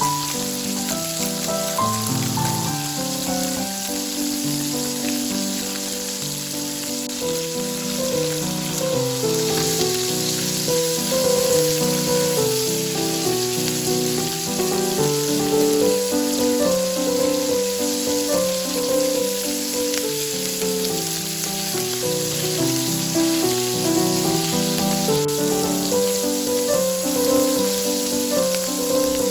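Background music with a gentle melody over a steady sizzle of food frying in a pan.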